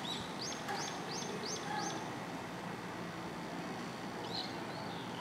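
Bird chirps: a quick run of about five high chirps early on and two more near the end, over the low steady hum of a Seibu 10000 series Red Arrow train standing at the platform.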